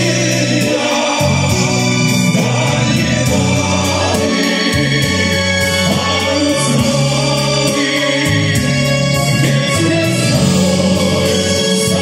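Male vocal quartet singing a slow song in close harmony through stage microphones, with long held notes.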